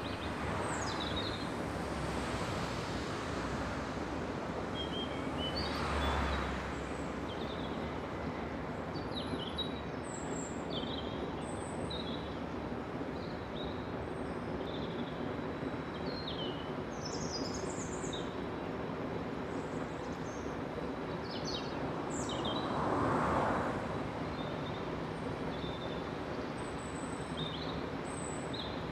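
Street ambience: a steady traffic hum with small birds chirping on and off throughout. Two vehicles pass, one about six seconds in and another around twenty-three seconds, each swelling and fading over a couple of seconds.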